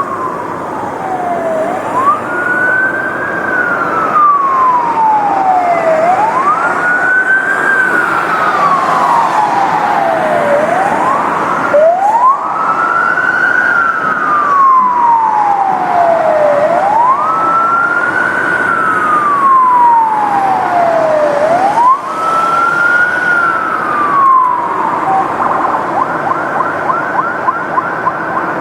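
Police car siren in wail mode: the pitch rises quickly, then falls slowly, repeating about every four to five seconds over a steady rushing background noise. Near the end the slow wail stops and the siren switches to a rapid warble.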